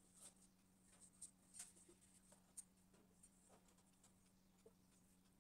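Faint squeaks and scratches of a marker writing on a whiteboard, in short irregular strokes, over a low steady hum.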